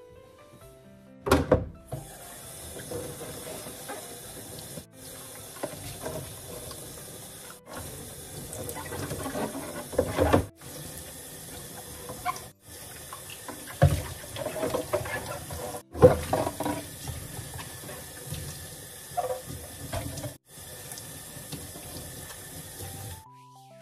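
Kitchen tap running into a sink while items are washed, with occasional knocks and clatter in the basin. The water breaks off abruptly and starts again several times.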